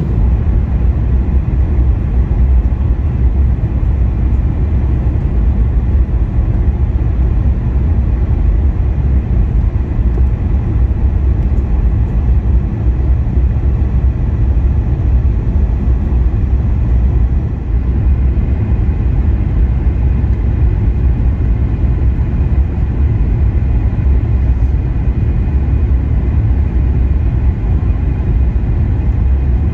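Steady cabin noise of a Boeing 737 MAX 9 airliner on final approach with its flaps extended: engine and airflow noise heard inside the cabin, strongest low down, with a brief slight dip about two-thirds of the way through.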